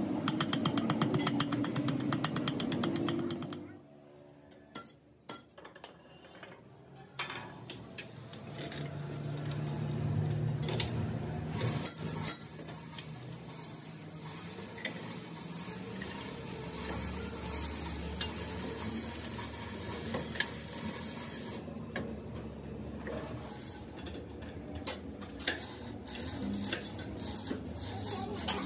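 Steel tools and parts clinking and knocking in a metal workshop, over a steady background noise. The first three seconds or so hold a louder, dense crackle. A quieter stretch with a few sharp clicks follows.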